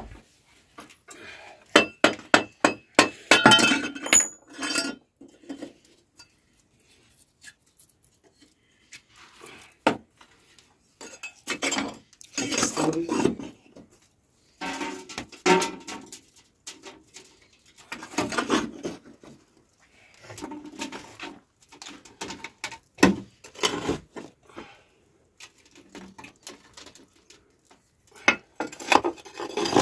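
Glowing coals being raked with a wooden stick over and around a metal pot lid on an open fire: irregular clinks, knocks and scrapes in short bursts with pauses between, as embers are heaped on the lid for dum pukht slow cooking.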